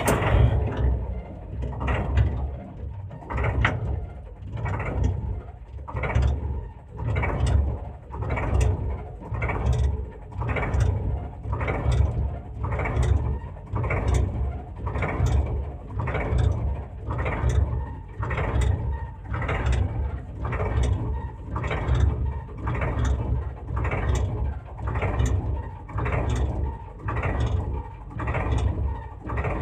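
Small battery-powered toy tractor's plastic gears running, with a steady repeating clicking pulse a little faster than once a second as it tows a toy concrete mixer.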